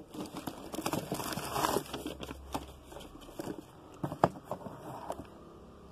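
Packaging rustling and crinkling as hands rummage through a cardboard box of packed products, louder about a second in, with a sharp click about four seconds in.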